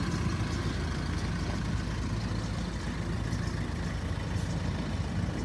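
Yellow school bus engine running with a steady low hum as the bus drives slowly and turns.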